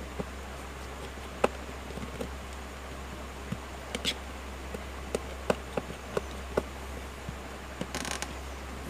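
Scattered small sharp clicks and taps of a screwdriver and fingers handling an opened smartphone's frame and parts, irregular and clustered in the second half, over a steady low hum.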